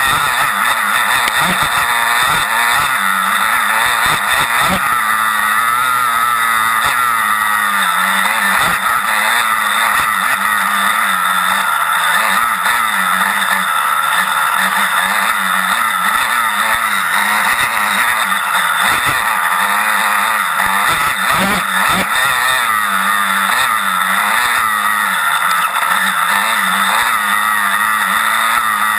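Off-road motorcycle engine running hard, its pitch rising and falling continuously with the throttle as the bike is ridden along a wooded race trail, heard on board the bike.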